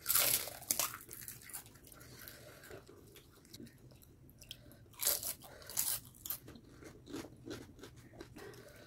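Crisp pani puri (fuchka) shells being bitten and crunched, then chewed. There are loud crunches right at the start and again about five and six seconds in, with smaller crunches and chewing in between.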